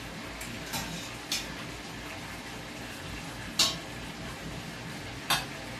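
Onions frying in olive oil in a pan, a steady sizzle, broken four times by short sharp clinks of cookware, the loudest a little past halfway.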